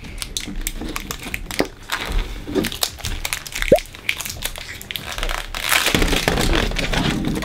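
Crinkly wrapping being torn and peeled off an L.O.L. Surprise ball: a steady run of crackles and rustles that grows thicker and louder near the end, with one short squeak about halfway.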